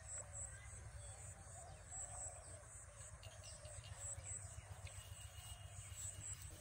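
Faint rural ambience: high insect chirping in short repeated pulses over a low steady rumble.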